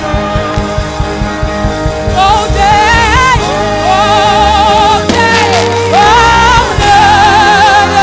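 Live gospel worship music: a band plays sustained keyboard chords over a bass and drum pulse, and from about two seconds in a singer joins, holding long notes with a wide vibrato.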